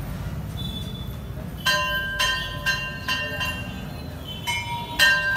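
Metal temple bell struck again and again, about two strokes a second, each stroke ringing on with several clear overlapping tones; the ringing starts a little under two seconds in, pauses briefly, then resumes.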